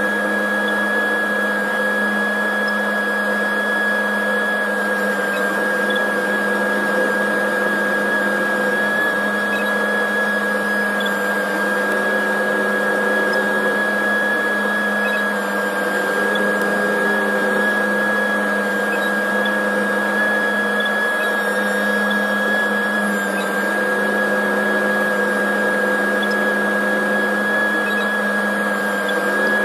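John Deere tractor running steadily under way, heard from inside the closed cab: an even engine drone with a steady high whine over it.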